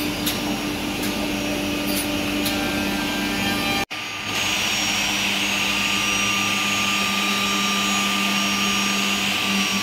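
Rensolin automatic edge banding machine running: a steady motor hum over a steady hiss. The sound breaks off for an instant about four seconds in, then carries on with a stronger, higher hiss.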